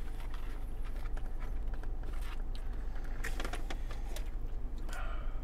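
Steady low hum inside a car cabin, with scattered soft clicks and rustles of eating, sipping and handling paper food packaging close to the microphone.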